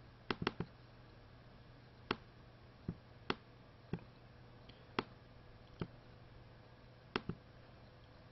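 Computer mouse clicking, about ten short, sharp clicks at uneven intervals with some in quick pairs, over a faint low hum.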